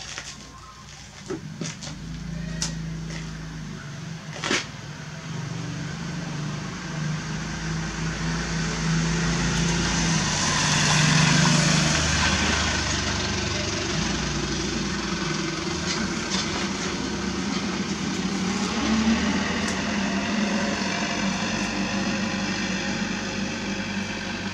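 A motor vehicle's engine running as it passes, swelling to loudest about halfway and fading slowly. A few sharp knocks of brick on brick in the first few seconds.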